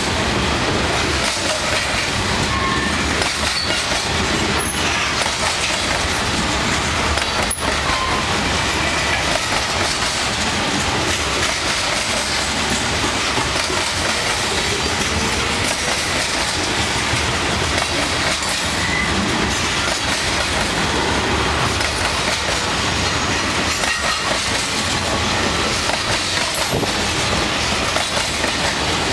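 Freight cars of a mixed freight train rolling past at close range, covered hoppers and then tank cars, with the continuous rush and clatter of steel wheels on the rails.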